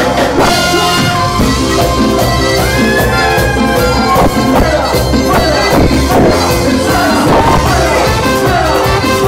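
Live Latin dance band playing loud, with male singers on microphones over keyboard and a brass section of trombone, trumpets and saxophone.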